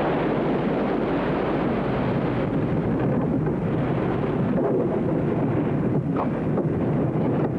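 Steady rushing of wind and sea around a sailing ship at sea, with a faint short rising creak about six seconds in.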